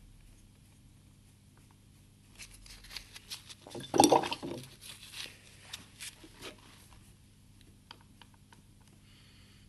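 Rustling and clattering of painting gear being handled, a burst of knocks and rustles loudest about four seconds in, over a steady low electrical hum.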